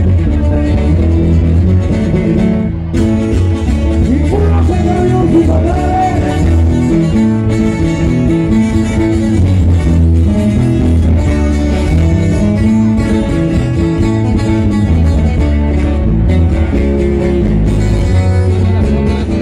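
Band music led by electric guitars, with a strong, steady bass underneath.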